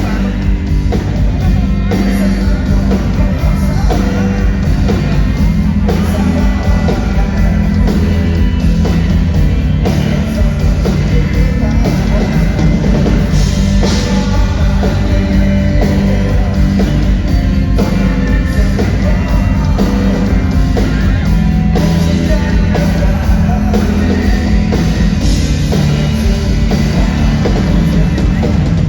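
Rock band playing live, with drum kit and guitars loud and continuous.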